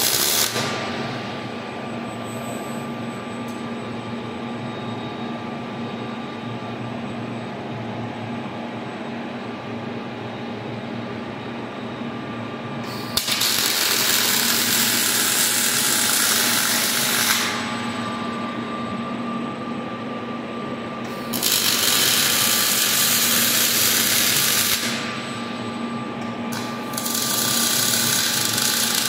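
Robotic MIG/MAG welding arc crackling and hissing in bursts of about four seconds, one weld after another, as the KUKA robot's torch lays welds on steel trusses. The first weld stops just after the start, and three more follow. Between welds a steady machine hum continues.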